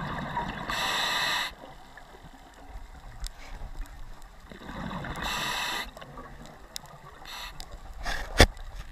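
Scuba diver breathing through a regulator underwater: two breaths about four seconds apart, each a bubbling rumble with a hiss on top, and a sharp click near the end.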